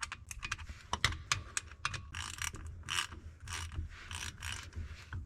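Ratchet wrench with a 10 mm hex socket clicking in short repeated runs as it tightens a rear differential fill plug.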